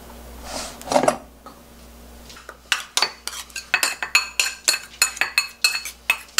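Metal spoon scraping and clinking against a small stainless steel bowl while scooping out thick soybean paste, a fast run of about five ringing clinks a second that starts about two and a half seconds in.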